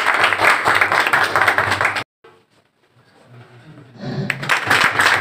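Audience applauding, a dense patter of many hands clapping. It cuts off abruptly about two seconds in, leaving a quiet gap, and the applause resumes near the end.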